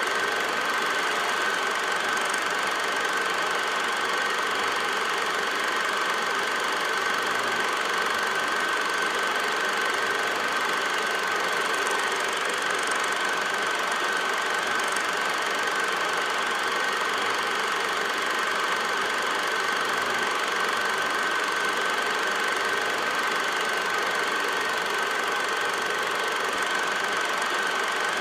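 8mm film projector running steadily, a constant mechanical whir with a high tone held throughout.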